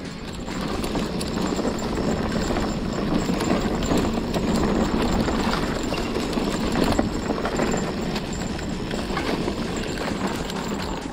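CUBE Acid hardtail e-mountain bike rolling along a dirt singletrack: tyre noise on the dirt with a constant clatter of knocks and rattles from the unsuspended frame and chain over the bumps of the trail.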